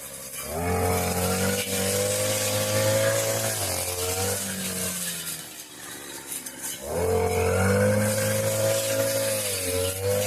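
Tasco two-stroke push lawn mower engine running hard while cutting thick brush. Its speed climbs about half a second in, sags under load around the middle, picks up again, and dips briefly near the end.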